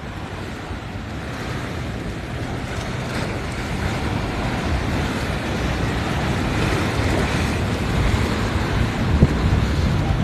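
A motorboat's engines approaching through the inlet, a steady rumble that grows gradually louder, mixed with wind buffeting the microphone and the wash of surf.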